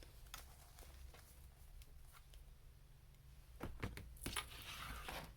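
Faint handling noise: a few scattered clicks, then a brief cluster of clicks and rustling starting about three and a half seconds in, from small objects being handled.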